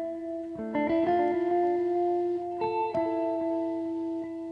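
Background music: slow held chords that change twice.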